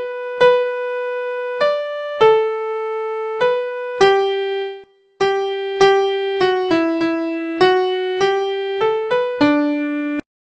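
Intro music on an electric piano: a slow melody of single struck notes, each held before the next. It breaks off briefly about halfway and stops suddenly near the end.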